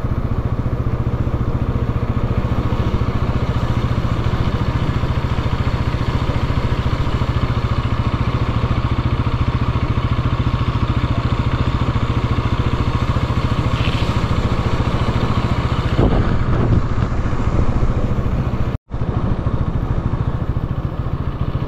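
Motorcycle engine running steadily under way, with road and wind noise; the sound drops out for an instant near the end.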